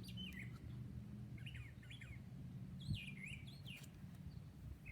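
Faint bird chirping: a few short clusters of quick up-and-down chirps, over a low steady hum.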